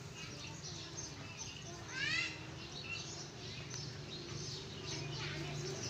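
Small birds chirping, many short high calls, with one louder rising call about two seconds in, over a steady low hum.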